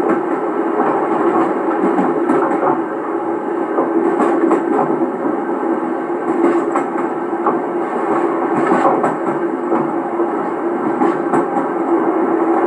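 Passenger train hauled by a DE10 diesel-hydraulic locomotive, heard from the end deck of the coach behind the engine: a steady running drone with irregular clicks of wheels passing over rail joints every couple of seconds.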